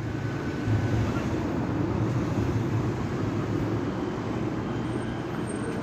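Steady city street background: a low, even rumble of traffic with a constant hum underneath.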